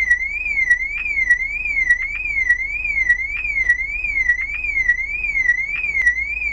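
Truck fuel-tank anti-theft alarm siren sounding: a loud electronic warble sweeping up and down in pitch, a little under two sweeps a second. It signals that the alarm has been set off by the fuel tank being opened.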